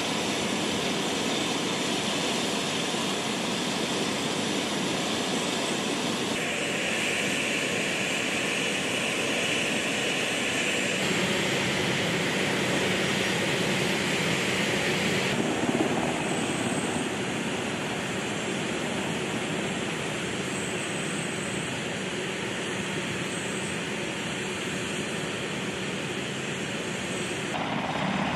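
Military aircraft engines running steadily: the turbofan whine of A-10 Thunderbolt II jets and the turbines and turning rotor of an HH-60G Pave Hawk helicopter. The mix of the noise changes abruptly several times.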